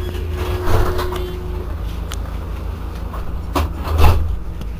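Steady low hum of an Alstom Citadis 302 tram, with a held tone that stops about a second and a half in. A few knocks and rattles come through the hum, the loudest about four seconds in.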